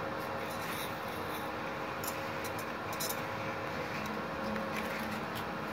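Multipro MIG-MMA/TIG 160 A-SC inverter welder switched on and idling, not welding, its cooling fan running with a steady hum. A few faint ticks come about two and three seconds in.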